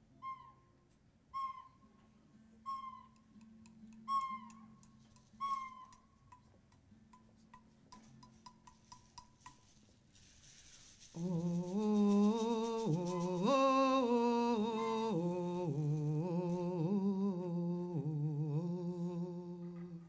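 Five short bird-like hooting calls about 1.4 s apart, then fainter, quicker calls, over a low steady drone. About ten seconds in a hiss begins, and then a loud wordless sung melody with vibrato, held notes stepping up and down, opening a samba number.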